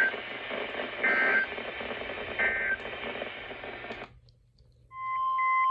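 Weather-radio broadcast static carrying three short warbling EAS data bursts about 1.3 seconds apart, the end-of-message code that closes the warning. The audio drops out about 4 seconds in, and near the end a steady alert tone starts with rapid beeping over it.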